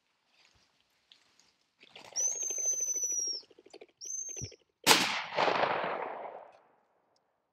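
A pheasant flushing with rapid clattering wingbeats while a dog whistle sounds, one long high blast and then a short one. About five seconds in a single shotgun shot rings out and echoes away.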